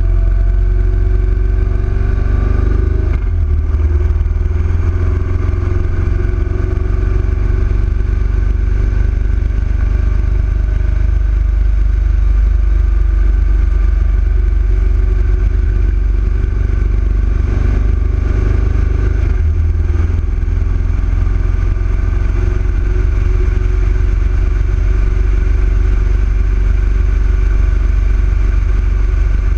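Yamaha XV1900's air-cooled V-twin engine running steadily under way, with a heavy low rumble. The engine note shifts briefly about three seconds in and again near twenty seconds.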